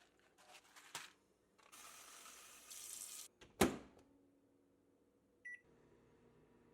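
Rustling and clicks, then a sharp clunk, then a microwave oven beeps once and starts running with a steady hum.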